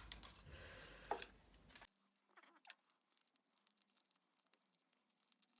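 Near silence: faint room tone that cuts out abruptly about two seconds in, leaving only a few faint ticks.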